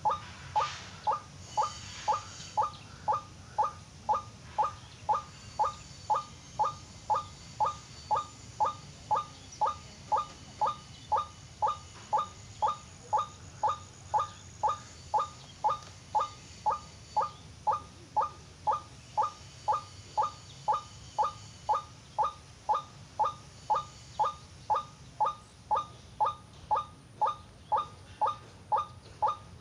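White-breasted waterhen call, a short falling note repeated very evenly about twice a second without a break.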